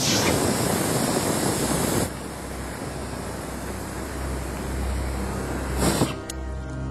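Aerosol spray can lit as a makeshift flamethrower: a sudden whoosh of flame and a loud hiss for about two seconds. Then a softer, steady rush of burning, a brief flare just before the end, and the fire noise cuts off.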